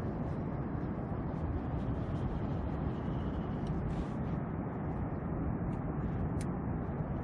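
Steady low rumbling noise with faint small ticks above it.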